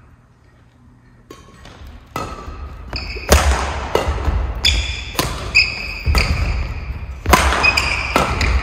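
Badminton singles rally on a wooden sports-hall floor, starting about two seconds in: sharp racket strikes on the shuttlecock, thudding footsteps and rubber shoes squeaking on the boards.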